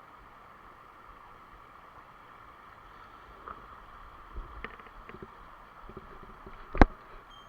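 Mountain stream water running steadily, with a few light knocks from about halfway and one sharp click near the end.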